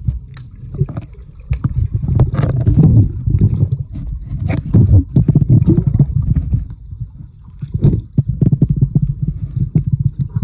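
Underwater sound picked up by a camera in a waterproof housing submerged in a pool. Water rumbles and sloshes around the housing, swelling and fading in several surges, with scattered small knocks and clicks.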